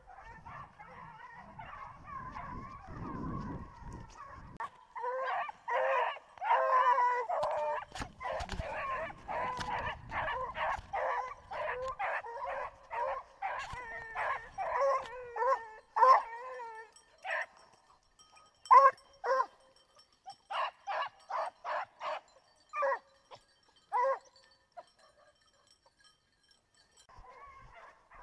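Young Griffon bleu de Gascogne hounds baying as they work a scent: faint at first, then a fast, unbroken string of bays from about five seconds in. After that the bays come singly and further apart, stop, and are taken up faintly again at the very end.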